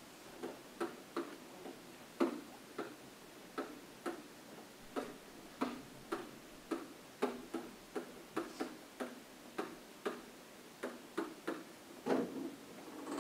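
A pen stylus tapping and knocking on an interactive whiteboard as words are handwritten on it: irregular clicks, about two a second.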